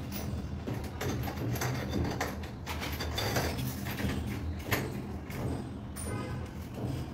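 Irregular clicks, scrapes and rattles of a round door-knob lock being handled and turned as it is fitted to a wooden door, with a sharper click about four and a half seconds in, over a steady low hum.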